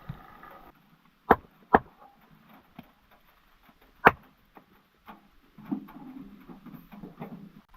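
Three sharp knocks, two close together a little after a second in and a third about four seconds in, then a couple of seconds of rustling and shuffling.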